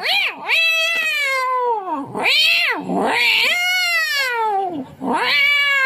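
A man imitating two cats fighting, voicing a run of long drawn-out yowls into a microphone, each rising and then sliding down in pitch.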